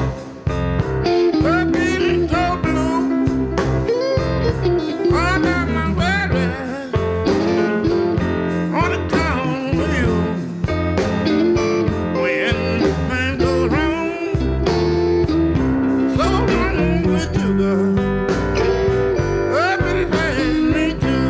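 Electric blues band playing live. A lead line with bent, wavering notes rides over a steady rhythm section.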